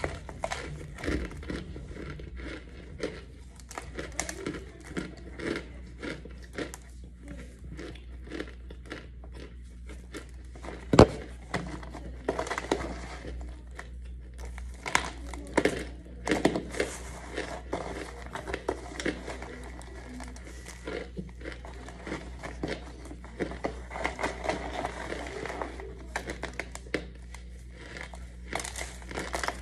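Hands crushing and crumbling chalky white powder chunks on crinkling plastic, a dense run of small crunches and crackles, with bites and chewing of the powdery pieces in between. One much louder sharp snap comes about a third of the way through.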